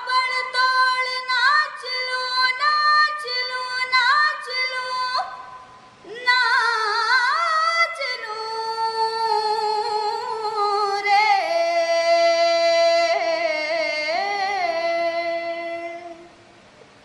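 A boy's high, unbroken voice singing unaccompanied, with no clear words. For about five seconds he sings short repeated notes. After a brief breath he holds long notes with wide vibrato and sliding ornaments, stopping about a second before the end.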